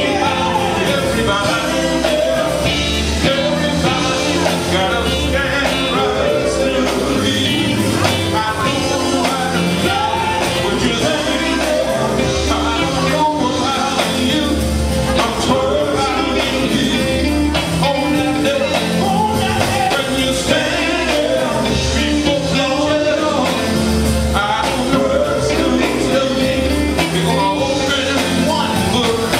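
Live gospel music: a male vocal group singing, backed by a band of electric guitar, bass guitar, keyboards and drums.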